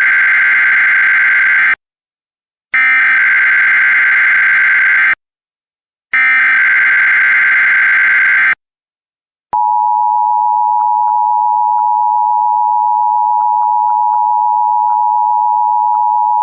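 Emergency Alert System SAME header: three bursts of warbling digital data tones, each about two and a half seconds long with about a second of silence between them. About nine and a half seconds in, the steady EAS attention signal tone starts.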